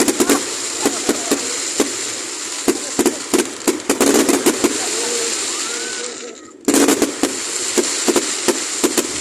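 Fireworks display: a dense run of bangs over steady crackling, which fades about six seconds in and then starts again suddenly with a fresh burst.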